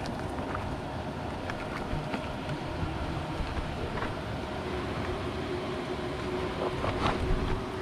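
Wind buffeting the microphone over a steady hum of giant honeybees flying around their cliff nest, with a few light knocks and scrapes, the loudest about seven seconds in.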